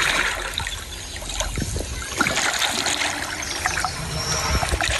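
Water splashing and sloshing as large river fish thrash at the surface close to the bank, with many small irregular splashes.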